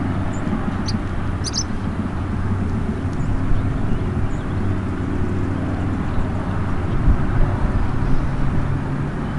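Outdoor ambience: a steady low rumble and hum, with a few short high chirps in the first two seconds.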